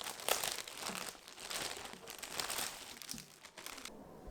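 Packaging crinkling and rustling as it is handled, stopping abruptly near the end.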